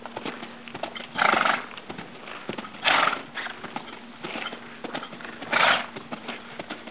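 Two-year-old Quarter Horse moving loose on soft dirt footing: a steady patter of hoofbeats, with three loud breathy snorts about two seconds apart.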